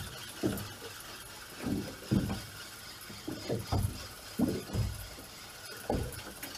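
Small waves slapping against the hull of a small fishing boat: irregular low thumps, about one a second.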